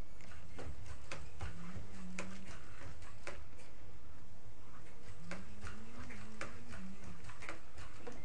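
Irregular mechanical clicks and ticks, one or two a second, over a steady low hum. A faint wavering whine rises and falls twice, near the start and again past the middle.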